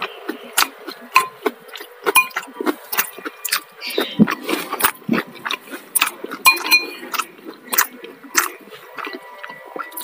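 Close-up eating sounds: chewing and lip smacks, with a metal spoon clinking against a ceramic bowl several times, a few of the clinks ringing briefly.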